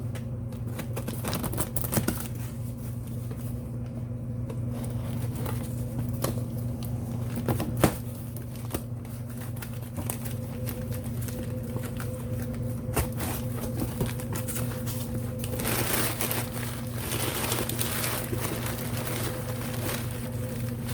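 Packing material crinkling and rustling as parts are unwrapped from a shipping box, with scattered clicks and knocks from handling, over a steady low hum. The rustling grows denser about three quarters of the way through.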